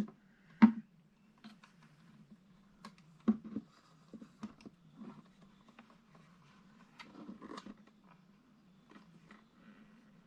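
Scattered small clicks and knocks of a speaker's parts being handled, the sharpest about half a second in and again about three seconds in, over a steady low hum.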